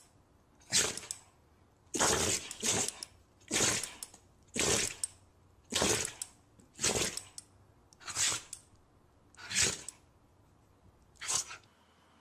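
A dog sneezing over and over, about nine short sharp sneezes, roughly one a second.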